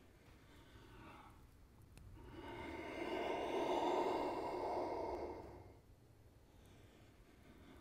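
A man's long, audible breath out, like a sigh, lasting about three seconds, with a quieter breath before it. It is breathing paced to prone back-strengthening lifts: inhale to lift the spine, exhale to lower down.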